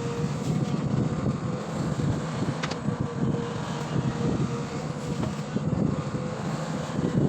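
Long-boom excavator's diesel engine running steadily, with a thin steady tone over the low engine sound.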